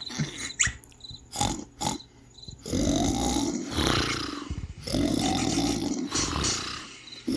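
A person snoring: a couple of short snorts, then two long rasping snores of about two seconds each, with a third beginning at the very end.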